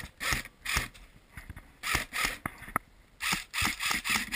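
Airsoft high-capacity magazine being wound by its thumb wheel: a run of raspy ratcheting strokes, about three a second, in short bursts with brief pauses between them.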